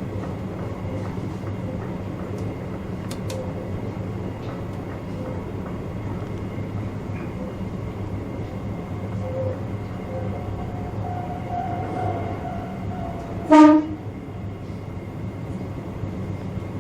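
Chichibu Railway electric train running, heard from the cab as a steady low hum with faint rail clicks. Near the end, one short, loud horn blast.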